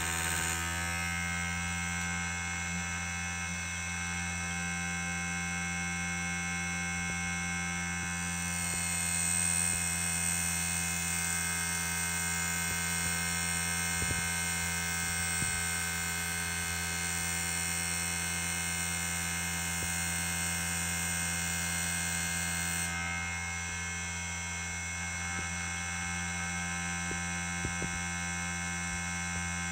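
Small NC lathe converted from a CNC1610 engraver running under its motors during a cutting test: a steady electric hum and whine of many steady tones. The tone shifts about eight seconds in and again near twenty-three seconds, as the motor drive changes.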